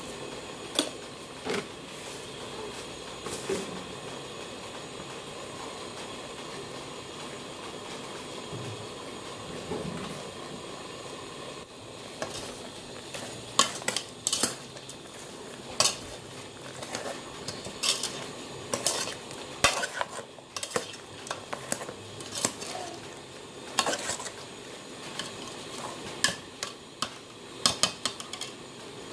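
A metal ladle stirring pork in an aluminium stockpot, clinking and scraping against the pot's sides and bottom, over a steady sizzle from the pot. The clinks are scattered at first and come often in the second half.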